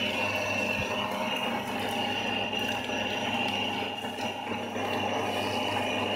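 Pellet-making machine built on a meat grinder, running steadily with a constant high whine over a low hum.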